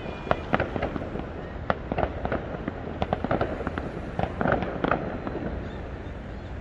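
Fireworks going off: a rapid, irregular series of sharp bangs and pops, with clusters about three and about four and a half seconds in.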